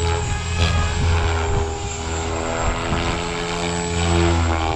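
Synergy 516 radio-controlled helicopter in flight, driven by a Scorpion 4020 brushless electric motor: a steady low rotor hum with a stack of even tones above it, holding the same pitch throughout.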